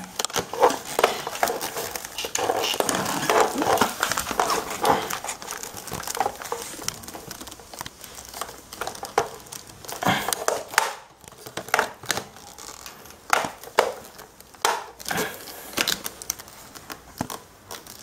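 Plastic wrapping crinkling, with irregular clicks and knocks of plastic parts being handled as a stick vacuum's aluminium tube is fitted to its floor-brush head.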